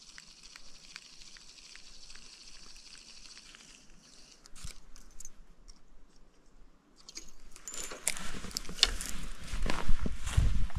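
A spinning reel is cranked in with a faint whir and small regular ticks. About two-thirds of the way in, footsteps start crunching through dry grass and brush, getting louder toward the end.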